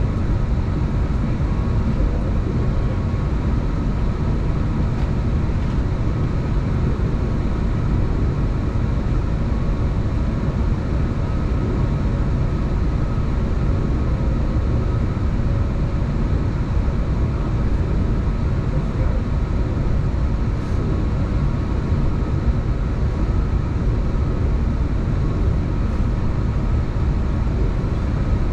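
Steady cabin noise inside an Airbus A321neo airliner: an even low rumble with a faint steady whine on top.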